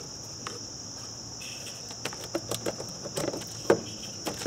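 Scattered light metallic clicks and clinks of a wrench being worked on car battery fasteners, most of them in the second half. A steady high insect chirring runs behind them.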